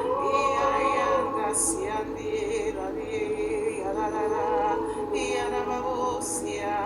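Wordless singing: voices holding long notes with vibrato, layered over one another like a small choir, over soft background music.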